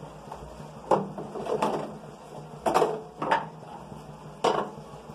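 Kitchen items being handled while an omelette mix is seasoned: five short, sharp clicks and knocks spread over a few seconds.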